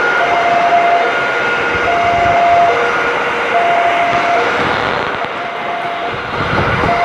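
Passenger coaches of a train rolling past close by, wheels running on the rails. Over it a level-crossing warning alarm sounds in two alternating tones, switching a little under once a second.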